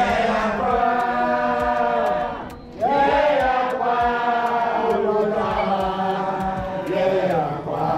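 A group of voices chanting in long held notes, with a brief break about two and a half seconds in.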